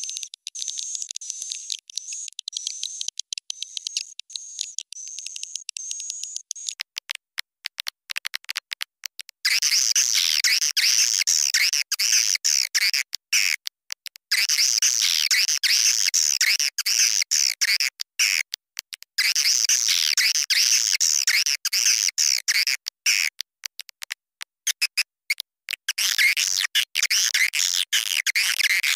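Swiftlet lure call track: recorded swiftlet twittering played back to draw swiftlets to a nest house. For the first few seconds it is a thin, high chirp repeating about twice a second; about a third of the way in it turns to dense, louder high twittering with a few brief breaks.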